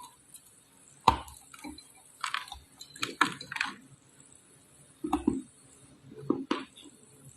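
Chunks of red clay crunching and crumbling in a series of separate crackly crunches, a few per second in clusters with short pauses between.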